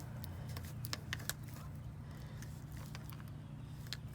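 Hand grease gun being pumped into the grease fitting of a new greasable sway bar end link: a few sharp clicks from the gun, over a steady low hum.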